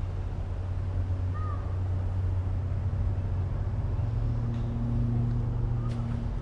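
A steady low rumble of distant motor traffic, swelling slightly past the middle, with one short bird chirp about a second and a half in.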